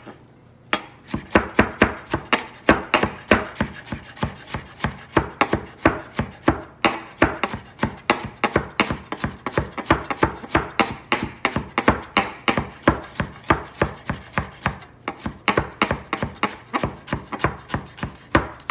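Kitchen knife chopping onion on a cutting board: a quick, even run of chops, several a second, starting about a second in.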